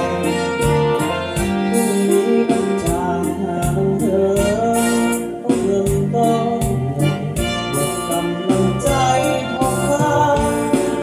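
Acoustic guitar played along with a full-band backing track that has a steady drum beat and a sustained lead melody line.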